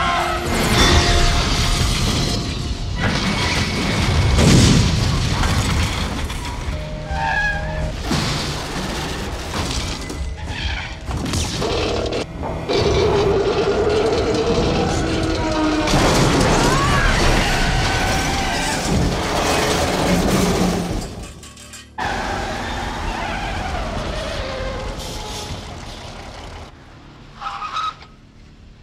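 Action-film soundtrack: dramatic score over vehicle crash effects, with heavy booming impacts as an armoured police van tips up on two wheels and crashes, and vehicle engines running.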